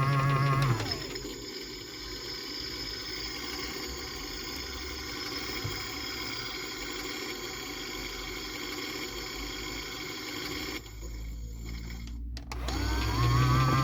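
AEG/Electrolux Lavamat 84950 washing machine in an interim spin. Under a second in, the motor's steady whine drops away with a falling pitch, and the machine runs on more quietly. Near the end the motor ramps back up with a rising whine.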